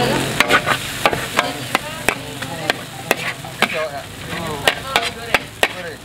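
Metal spatula clanking and scraping against a wok as fried noodles are stirred and scooped out, about two sharp clanks a second at an uneven pace, over a steady sizzle.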